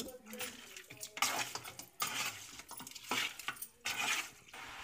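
A metal spoon stirring and scraping chicken pieces around a metal kadai as they stir-fry, in irregular strokes. Near the end the stirring stops and a steady hiss remains.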